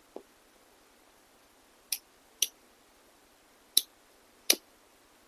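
Tobacco pipe being relit with a lighter: a soft pop just at the start, then four sharp clicks spread over about two and a half seconds.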